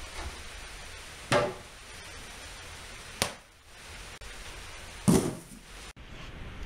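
Three sharp knocks and thumps, about two seconds apart, as things are handled and set down on a wooden garage shelf and a stepladder; the last is the loudest and deepest. A steady hiss runs underneath.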